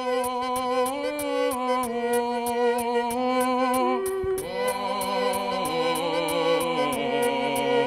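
Background music: sustained, wavering melodic notes in slowly changing chords over a steady ticking beat of about four ticks a second, with lower notes coming in about halfway through.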